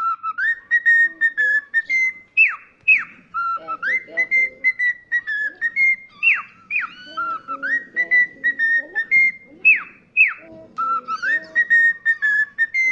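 Cockatiel whistling a tune: held whistled notes stepping up and down, broken by pairs of quick downward swoops about every three and a half seconds, the same phrase repeated over and over.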